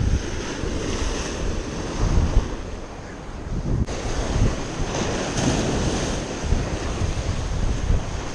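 Surf washing and breaking against the rocks of a jetty, with gusts of wind buffeting the microphone.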